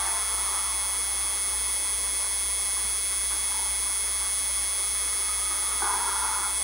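Steady electrical hum and hiss with a faint high whine, unchanging throughout.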